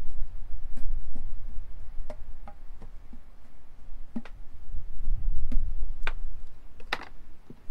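Hands rubbing marinade into a whole raw sheep carcass and shifting it on a wooden board: irregular wet slaps and clicks, a few sharper ones in the second half, over a steady low rumble.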